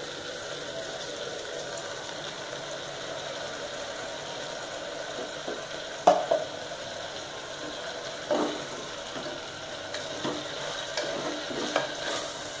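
Vegetables and freshly added ground masala paste sizzling steadily in an open pressure cooker on a gas stove. A spoon knocks against the pot and scrapes, loudest about six seconds in, with further knocks near eight seconds and several smaller ones toward the end as the paste is stirred in.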